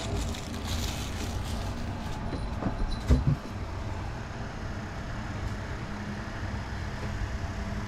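A steady low rumble, with a few sharp knocks about three seconds in.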